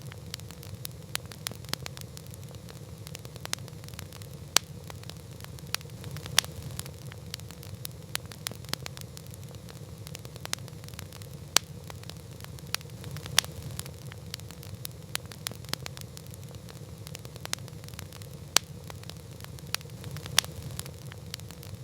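Campfire burning, a steady low rumble of flames with irregular sharp crackles and pops, a few of them much louder than the rest.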